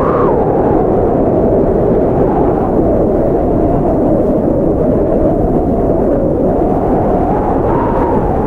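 Blizzard wind blowing strongly and steadily, a dense rushing noise whose howling upper edge rises and falls slowly in pitch.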